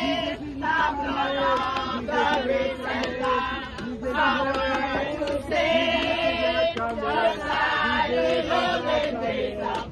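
A small group of women and men singing a worship song together, with long held notes.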